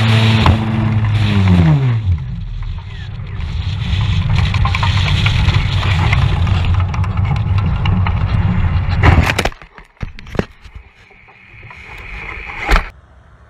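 RC plane's motor running at a steady pitch, then falling in pitch and winding down. A rough rumbling noise follows as the plane comes down, then a few sharp knocks and a sharp click near the end.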